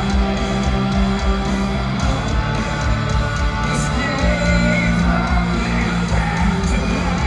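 Live heavy metal band playing loud in an arena, heard from the crowd: distorted electric guitars over bass and drums.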